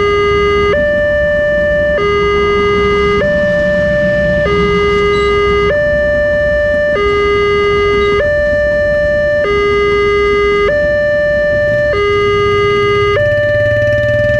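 Railway level-crossing warning alarm sounding continuously, an electronic tone switching back and forth between a lower and a higher pitch about every second and a quarter. Beneath it a passenger train's coaches rumble past, and a low engine hum comes in near the end.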